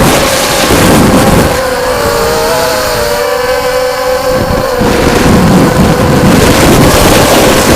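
Electric motors and propellers of FPV racing quadcopters whining, a steady high drone that wavers slightly in pitch as the throttle changes, with gusts of rushing noise as they fly past.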